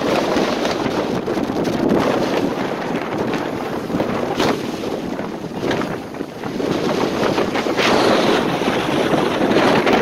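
Big winter storm waves surging and breaking against a concrete seawall, under strong wind buffeting the microphone. The surf swells and eases, and grows loudest near the end as a wave hits the wall and throws up spray.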